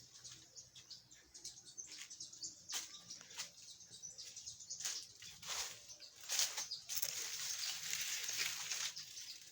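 Leaves and plant litter rustling and crackling as someone moves among banana plants. Short scattered crackles turn into a longer, denser rustle about six seconds in that eases near the end.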